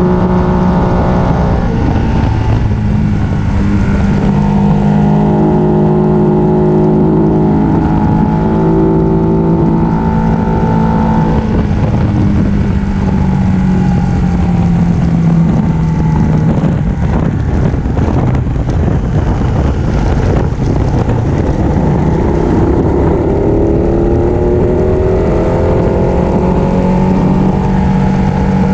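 Ducati 1299 Panigale's Superquadro L-twin engine running at road speed, heard on board over loud wind rush. The engine note falls away in the middle as the bike slows, then climbs again near the end as it picks up speed.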